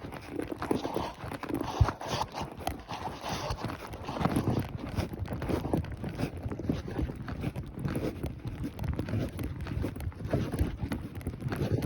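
Ridden horse's hooves striking the ground in a continuous, uneven clip-clop.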